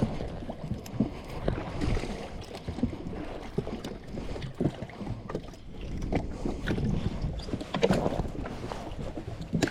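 Water slapping and lapping against the hull of a jet ski sitting on the sea, with scattered small knocks and wind on the microphone.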